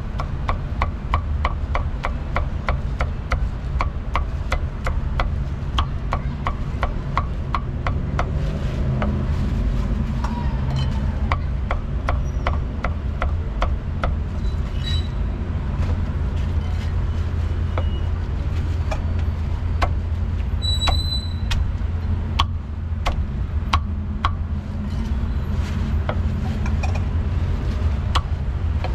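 A steel cleaver chopping roast pork on a thick round wooden chopping block. The strokes come quick and even, about four a second, for the first ten seconds, then turn slower and irregular. A steady low rumble of street traffic runs underneath.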